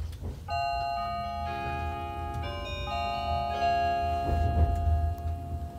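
A Meitetsu train's onboard electronic chime plays a short melody of held notes over the public-address speaker, starting about half a second in. It is the signal that comes before the automated next-stop announcement, and the low rumble of the train running lies underneath.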